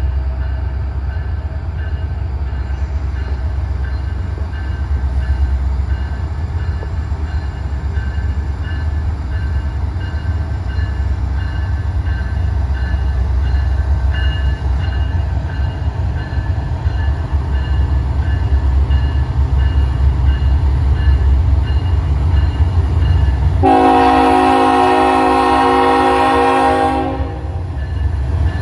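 Diesel freight train running with a steady low rumble, and a locomotive air horn sounding one long blast of about three and a half seconds near the end.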